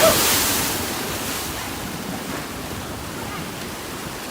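A rushing noise, like surf, that is loudest in the first second and a half and then eases to a steady, lower rush.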